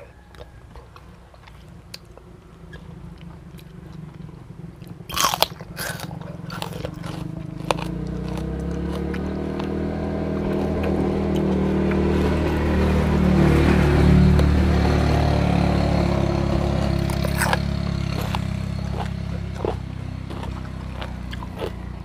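Close-miked chewing and biting of seafood and raw vegetables, with sharp mouth clicks and a loud crunchy cluster about five seconds in. Under it, a low engine hum builds from about a third of the way in, is loudest past the middle and fades toward the end, like a motor vehicle passing.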